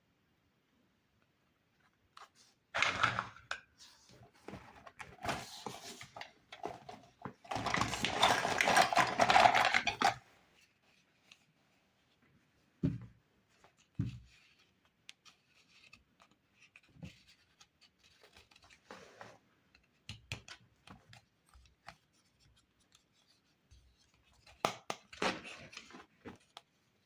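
Toy packaging being unwrapped and handled: bursts of plastic crinkling and tearing, the longest and loudest lasting a couple of seconds, with two dull knocks and scattered small clicks of plastic toy pieces in between.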